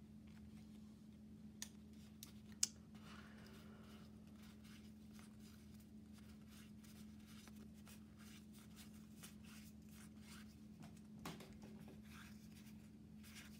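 Trading cards handled and flipped through by hand: soft sliding and rustling of card against card, with a few sharp card clicks about two seconds in, over a low steady hum.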